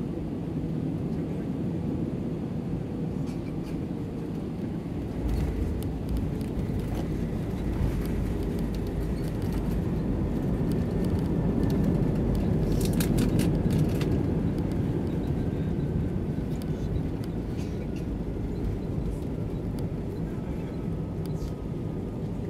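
Cabin noise of an Airbus A320-200 landing. About five seconds in, the main wheels touch down and a low runway rumble starts. The engine noise then swells to a peak around twelve to fourteen seconds in as the aircraft slows with spoilers up and reverse thrust, and eases off toward the end, with a faint falling whine.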